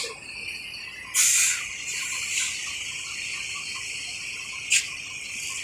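Steady high-pitched chirring, insect-like, with a short loud hiss about a second in, a fainter one a second later, and a sharp click near the end.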